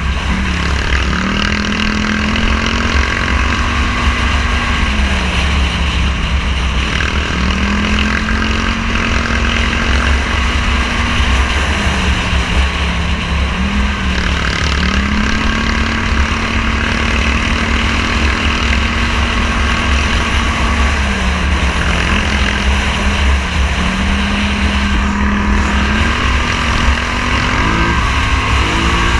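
Scrambler 1000 motorcycle engine running on the move. Its note holds steady, then drops and climbs back again several times. A heavy low rumble of wind buffeting the on-bike microphone lies under it.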